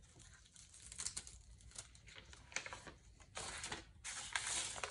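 Cut-out pieces of a paper template, held down with clear packing tape, being peeled off a wooden board: faint crinkling and tearing rasps, longer and louder near the end.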